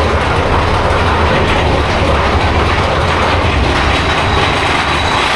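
Big Thunder Mountain Railroad mine-train roller coaster rolling through a rock tunnel: a steady, loud rumble and clatter of the train's wheels on the track.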